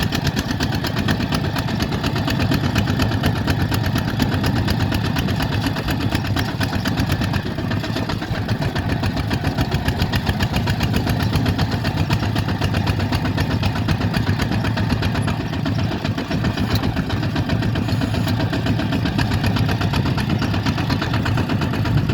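Bulldozer's diesel engine running steadily, with a fast, even pulse and no change in speed.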